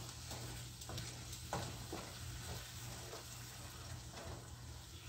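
Tomato-based jollof sauce frying faintly in a pan as a wooden spoon stirs it, with soft scrapes of the spoon against the pan every second or so.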